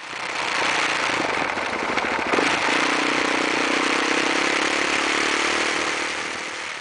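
Street traffic heard from a moving vehicle: a steady rushing noise, with a steady engine hum coming in about two and a half seconds in.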